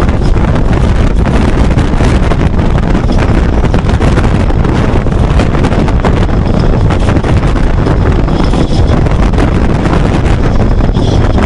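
Strong storm wind buffeting the microphone as a loud, steady rumbling rush. A faint high whistle comes in briefly twice in the second half.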